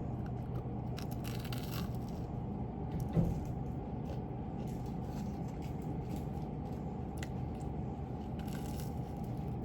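Steady low hum of room tone with brief handling noises about a second in and again near the end, and a single soft thump about three seconds in.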